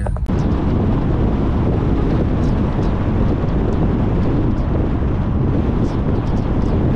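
Loud, steady rushing of wind buffeting the microphone; it starts abruptly just after the opening.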